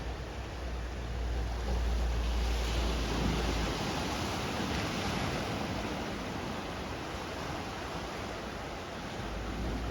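Ocean surf washing in, swelling about a second in and easing over several seconds, with a low wind rumble on the microphone at the start and again near the end.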